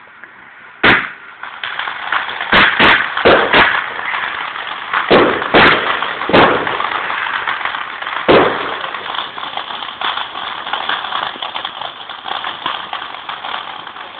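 Fireworks going off: a sharp bang about a second in, then a string of about eight more bangs over the next seven seconds, over dense continuous crackling.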